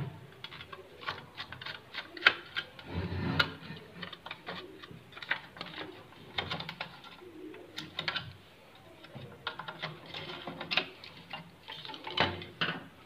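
A screwdriver unscrewing the back cover of an electric iron, and the plastic cover being handled and taken off: irregular small clicks, taps and scrapes of metal on screw and plastic.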